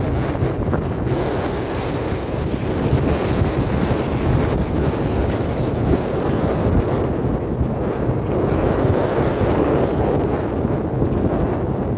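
Ocean surf washing in steadily, with wind buffeting the microphone and filling the low end.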